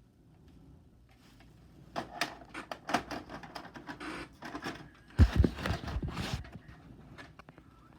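Irregular clicks and knocks in quick succession, with one heavy low thump about five seconds in.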